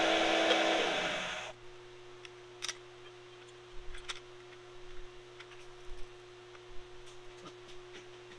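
A drilling machine boring a hole through steel stops abruptly about a second and a half in. Then a low steady hum remains, with scattered small clicks and taps of metal parts being handled.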